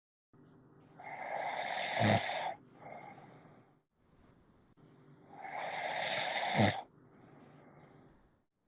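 A man snoring heavily: two loud rasping snores about four seconds apart, each ending in a brief low catch and followed by a softer, quieter breath.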